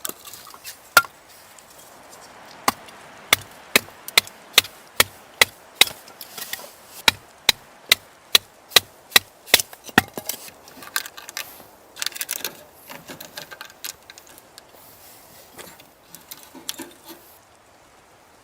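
Wood being struck with a tool: a rapid, even run of sharp knocks, about two to three a second, then lighter, irregular knocks and clatter near the end.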